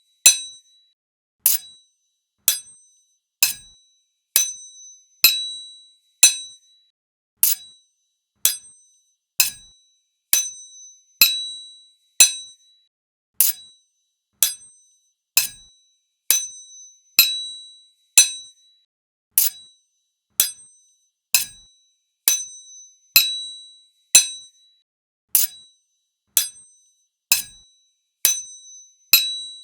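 Two sword blades struck against each other, about one clash a second. Each clash is a sharp metallic clink with a brief high ringing that dies away.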